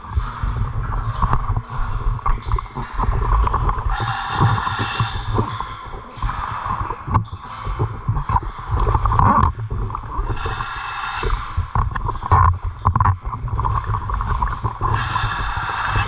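Scuba diver breathing through a regulator: three hissing inhalations about six seconds apart, with rumbling, bubbling exhalations between them.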